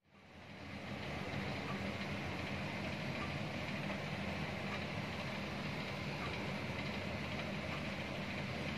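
Steady mechanical hum with a hiss over it, fading up from a moment of silence at the start.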